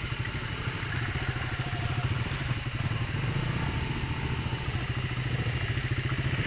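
Motorcycle engine running steadily at low speed, growing a little louder over the few seconds.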